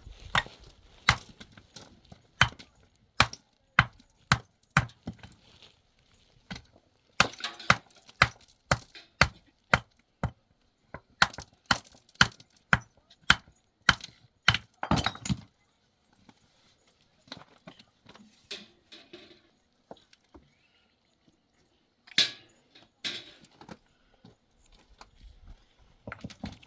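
Stones knocking and clinking against each other in irregular sharp strikes, coming in runs with short pauses between.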